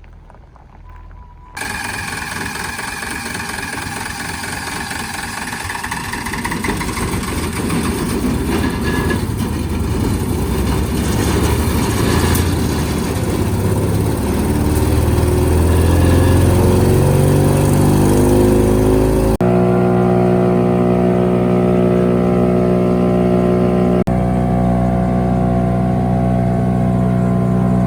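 Rented 5-inch wood chipper starting up about a second and a half in, its pitch climbing steadily as it runs up to speed. It changes suddenly to a steady, even running hum for the last several seconds.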